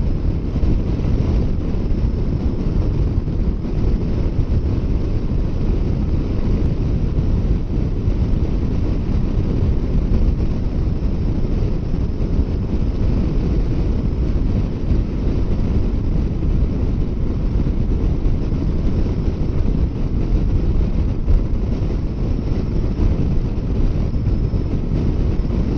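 Steady wind rushing over the microphone of a Kawasaki Versys 650 motorcycle at highway speed, a dense, unbroken noise heaviest in the low end.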